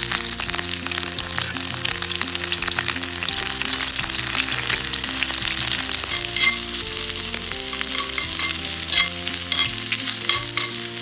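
Chicken wings sizzling and crackling as they cook over a campfire, with background music playing underneath.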